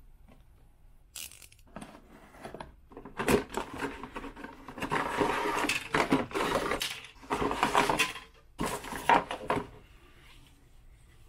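Hands handling a plastic scale-model kit: a cardboard box, plastic parts sprues and a paper instruction sheet. Scattered knocks and clatter, with bursts of rustling and crinkling through the middle and a few sharp clicks.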